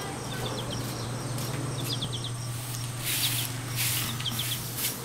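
A short straw hand broom swishes across bare dirt in two strokes about three and four seconds in. A small bird chirps in quick bursts of three or four notes, and a steady low hum runs underneath.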